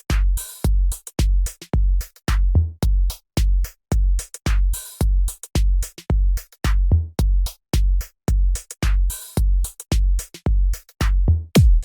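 Electronic dance music with a heavy, steady drum-machine kick beat, about two to three thumps a second.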